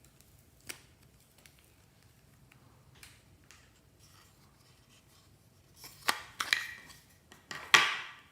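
Crisp handling sounds of slime-making materials: a few faint clicks, then two short bursts of crackling near the end.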